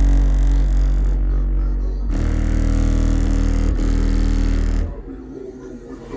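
A 12-inch Avatar STU car-audio subwoofer playing loud, deep bass notes from music, held long and changing pitch about two seconds in. The bass cuts out suddenly about five seconds in, leaving quieter music.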